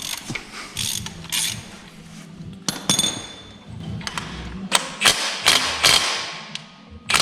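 Hand tools working on the engine's front end: a run of metallic clicks and knocks with some socket-ratchet clicking, and a brief metallic ring about three seconds in.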